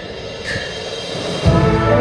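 A processional brass-and-drum band (agrupación musical) playing a march. Quieter sustained notes with short sharp accents are followed, about one and a half seconds in, by a loud full-band entry with low brass and drums.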